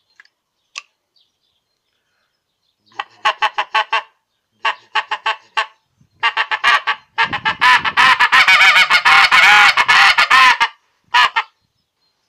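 Short-reed greylag goose call of acrylic and Delrin, mouth-blown: two groups of short honks, then a fast, loud run of honking chatter lasting about three seconds, and one last short honk near the end. The call is still wet from water poured into it and sounds without the reed sticking.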